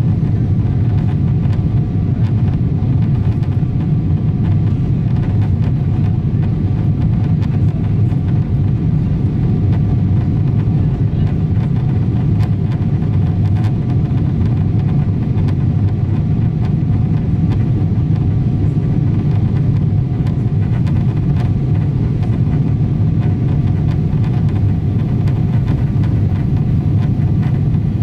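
Steady low rumble of a Boeing 777-200's engines and rushing air, heard inside the passenger cabin during the climb after takeoff, with a few faint steady tones above it.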